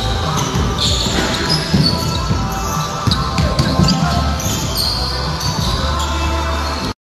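Pickup basketball game on a hardwood gym floor: a ball dribbling and bouncing amid sneaker squeaks and players' voices. The sound drops out briefly near the end.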